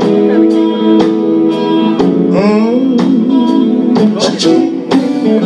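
Live gospel band playing: held keyboard chords, electric guitar and steady drum hits, with a wavering melodic line near the middle.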